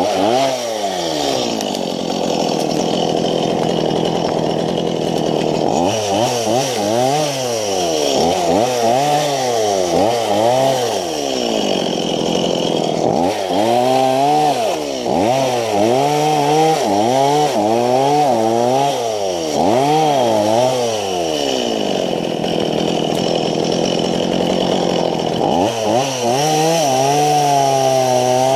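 Two-stroke chainsaw engine running, held at high revs for stretches and in between revved down and up again in quick repeated pulses, about one a second.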